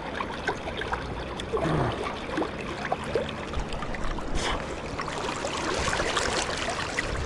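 River water flowing and trickling close to the microphone, with a short low grunt about a second and a half in.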